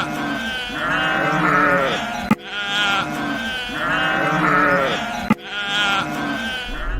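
Sheep bleating, several quavering bleats in a short loop that plays three times over, with a sharp click at each join, about 2.4 s and 5.4 s in.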